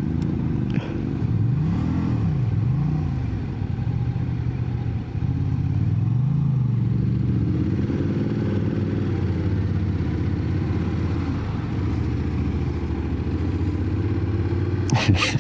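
Motorcycle engine pulling up a steep mountain road, its revs rising and falling several times with throttle and gear changes.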